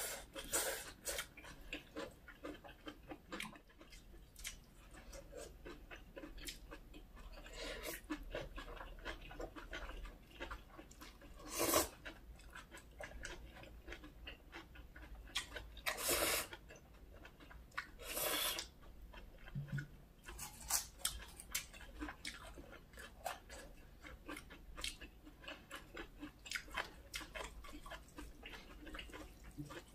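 Close-miked eating sounds of people chewing chewy canned whelk and spicy bibim noodles with water parsley pancake: a steady run of small wet smacks, clicks and crunches. Three louder eating noises stand out in the middle.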